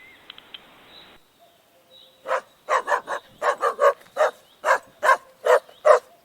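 A dog barking: about a dozen short barks in quick succession, starting about two seconds in.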